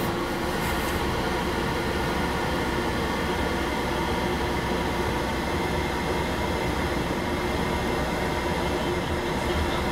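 Steady hum and rumble inside a Ford Explorer's cabin as it creeps in reverse while its Active Park Assist steers the wheel by itself.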